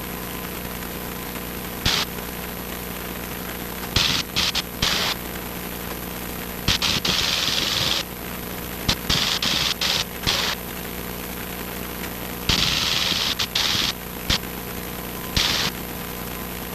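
Cessna 150's Continental O-200 engine droning steadily in cruise as heard inside the cabin, cut into again and again by short bursts of loud hiss that switch on and off abruptly.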